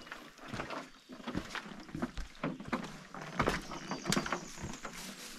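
Footsteps on loose rocks: an uneven run of knocks, clicks and scrapes as a person walks over boulders carrying a load.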